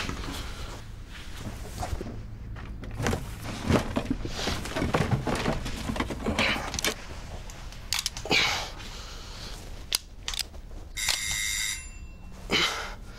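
Scattered clicks, knocks and rustles of someone moving and handling things in a small room. About eleven seconds in there is a steady electronic alert tone of about a second, like a phone alert or alarm beep.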